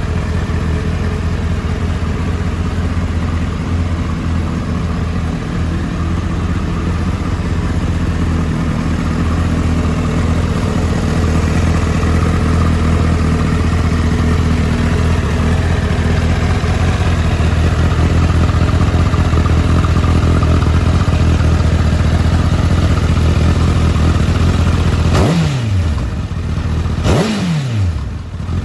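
Honda CBR1000RR inline-four engine idling steadily through a TSR aftermarket muffler, then blipped twice near the end, each rev rising sharply and dropping back to idle.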